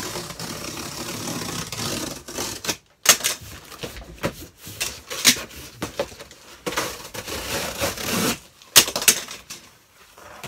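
Corrugated cardboard box being scored with a knife and its flap creased and folded down: a scraping stretch at first, then several sharp cracks and crackles of the cardboard giving way.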